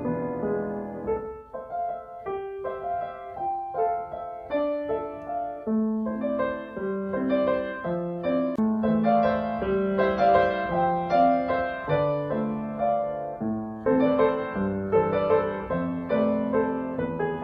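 Background piano music: a gentle melody of held notes over a moving bass line.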